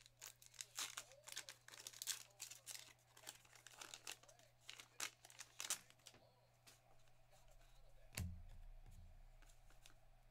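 Paper card pack wrapper torn open and crinkled in the hands: a quick run of crisp rustles and tears over the first six seconds. After that it goes quieter, with one soft thump about eight seconds in.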